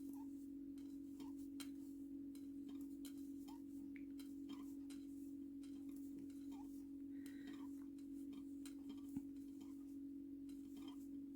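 Faint, irregular light clicks of a crochet hook and yarn being worked through double crochet stitches, about one or two a second, with one sharper tick about nine seconds in, over a steady low hum.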